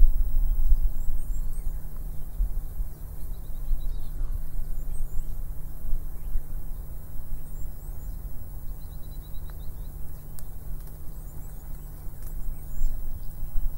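Short runs of bird chirps now and then over a steady low rumble with a faint hum.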